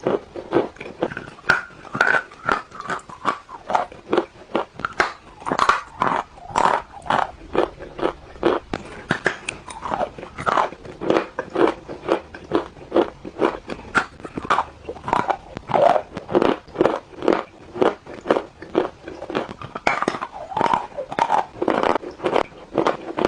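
Crunchy food being bitten and chewed close to the microphone, a steady run of sharp crunches about two a second.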